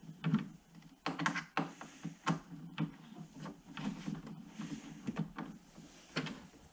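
Irregular light clicks and knocks of small hardware and hand tools being handled, like screws, washers and a screwdriver, with some louder taps now and then.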